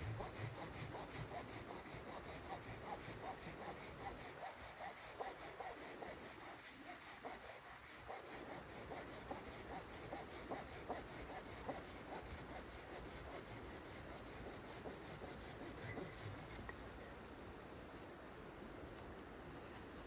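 Red-handled folding pruning saw cutting through a wooden branch by hand, in a steady run of back-and-forth strokes. The strokes stop a few seconds before the end.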